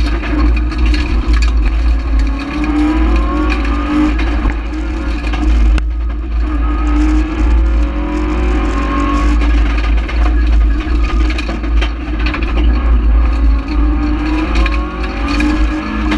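Rally car engine heard from inside the cabin, revving up again and again through the gears, the pitch climbing and falling back at each shift, over a heavy low rumble.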